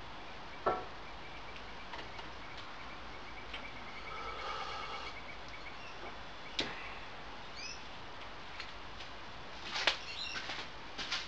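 Steady low background hiss with scattered light clicks and knocks, the sharpest less than a second in and a cluster about ten seconds in, and a few faint bird chirps between them.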